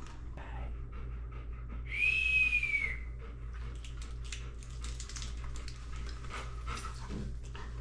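A dog gives one high, drawn-out whine about two seconds in, rising and then falling slightly. It is followed by a run of short crackly clicks as a crisp taco is bitten and chewed.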